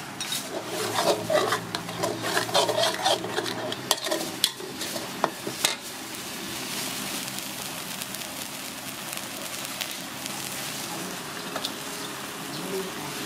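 A metal spatula scrapes and stirs red chili paste in oil around a steel wok, with sharp clinks of metal on metal, for about the first six seconds. Then the paste frying in the hot oil gives a steady sizzle.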